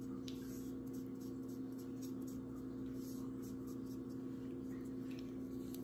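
Faint, soft rubbing of an alcohol pad wiped over skin in short strokes, over a steady low hum.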